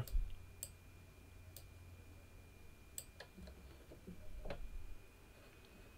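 A few scattered computer mouse clicks, about four over several seconds, over a faint steady high tone and a low hum.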